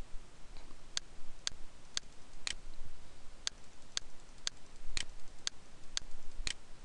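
Computer mouse clicking at a steady pace of about two clicks a second, a dozen or so in all, with one beat skipped near the middle.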